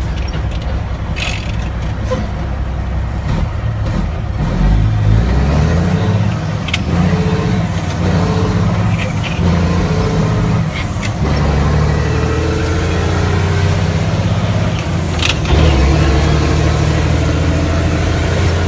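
Mack RD truck's diesel engine running under load, its note stepping up and down a few times, with a few short sharp sounds, the loudest about fifteen seconds in.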